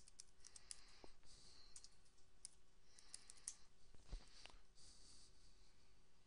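Faint computer keyboard typing: a run of quick, light key clicks, with a duller knock about four seconds in.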